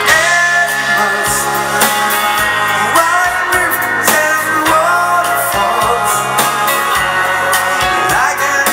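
Live dance band playing a foxtrot on electric guitars, keyboard, bass and drums, with a steady bass line and a lead melody that slides up into its notes.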